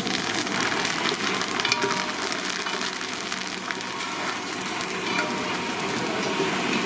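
Curry leaves, garlic and dried red chillies sizzling and crackling in hot oil in an aluminium pot, the tempering for a curry, while a long metal spatula stirs them.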